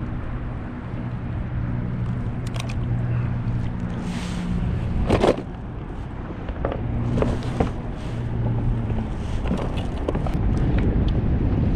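Wind on the microphone and water around a plastic fishing kayak, with scattered knocks and clicks of a fish and gear being handled against the hull; the loudest knock comes about five seconds in. A low steady hum comes and goes underneath.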